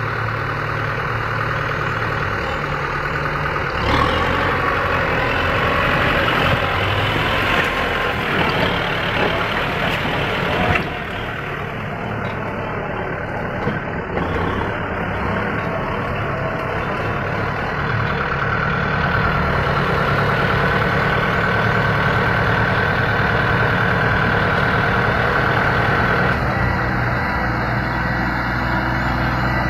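Tractor engine running steadily under load, dipping slightly in loudness about a third of the way through.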